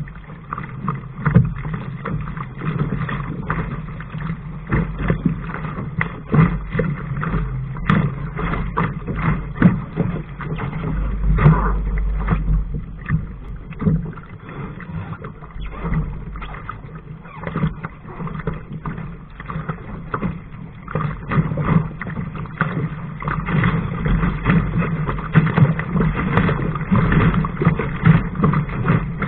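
Water splashing and slapping against the hull of a Laser sailing dinghy under way, in many short irregular splashes and knocks, with a low wind rumble on the microphone.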